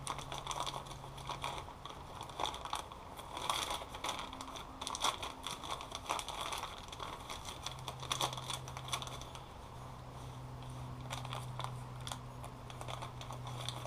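Small clear plastic bag of heat-shrink tubing crinkling as it is handled and opened, in irregular crackles, over a low steady hum.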